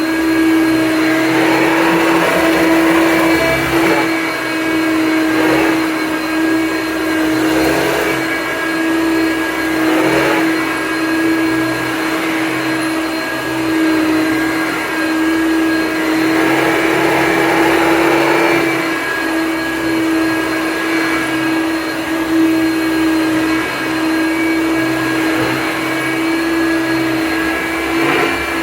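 Hoover Concept Power Drive upright vacuum cleaner running steadily with a constant motor hum. Several times a rushing surge of noise rises over it as dust, paper and debris are sucked up.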